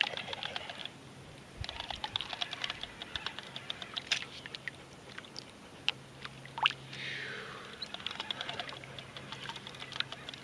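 Fishing reel cranking with a rapid run of small clicks. A low steady hum comes in about halfway through.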